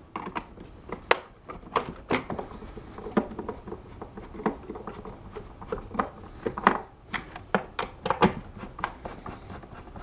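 Hand Phillips screwdriver driving screws into a hoverboard's plastic shell: irregular clicks and scratches of the bit in the screw heads, with hands handling the plastic.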